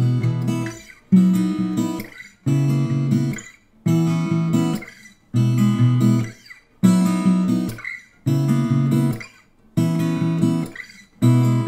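Background music: strummed acoustic guitar chords, each struck and left to ring down into a brief gap, about one every second and a half.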